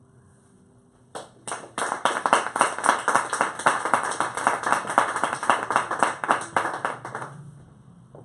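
Audience applauding. A couple of single claps come about a second in, then steady clapping follows and fades out near the end.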